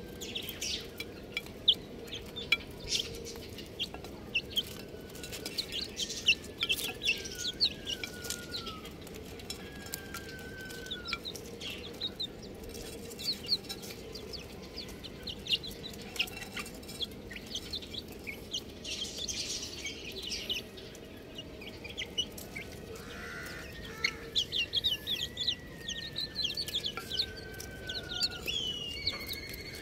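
A group of chicks peeping, with many short high chirps throughout and a few longer calls that slide down in pitch, over a steady low background noise.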